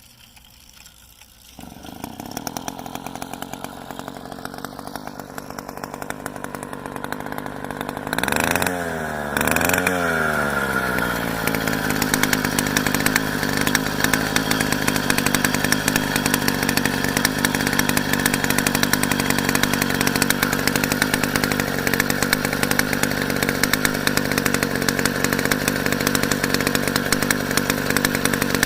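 Motorized bicycle's small engine running with a rapid, buzzy pulse. It comes in about a second and a half in and grows louder, its pitch swoops twice at around eight to ten seconds, then it runs steadily and louder.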